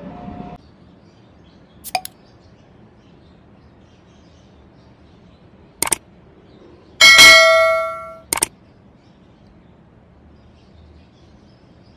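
Subscribe-button animation sound effects: mouse clicks about two and about six seconds in, then a loud bright notification-bell ding that rings out for about a second, and one more click. Just after the start, the tail of a train horn cuts off.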